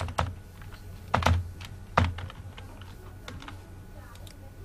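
A few scattered keystrokes on a computer keyboard: separate clicking taps, the loudest about a second and two seconds in, with fainter clicks between.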